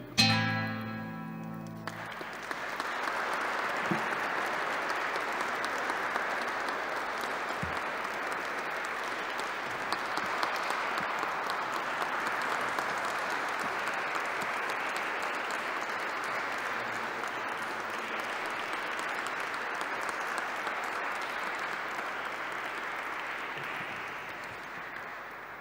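Audience applauding steadily, fading away near the end. Acoustic guitar chords ring out under the first couple of seconds as the song ends.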